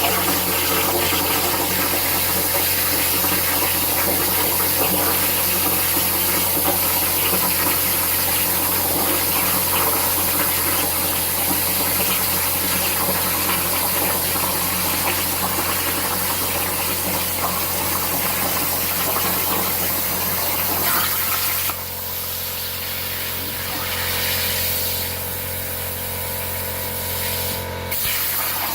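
CNC plasma cutter torch cutting with a loud, steady hiss. About 22 seconds in it drops to a quieter steady hiss and hum.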